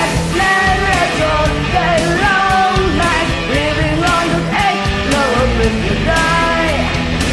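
Rock song with electric guitar and a woman singing the lead vocal.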